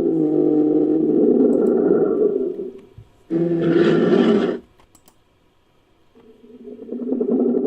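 Styracosaurus creature sound effect mixed from animal recordings such as elephant, alligator and camel calls. It runs as a long low call, then a shorter one about three seconds in, a pause of a second and a half, and another call swelling in near the end.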